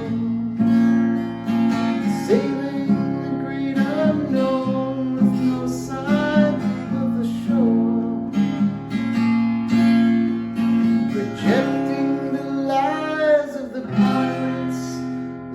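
Acoustic guitar strumming and picking chords in a steady rhythm: the instrumental passage between sung lines of a singer-songwriter song.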